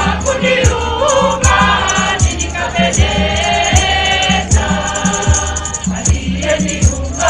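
A choir singing a gospel song over music with a steady low drum beat, about two beats a second.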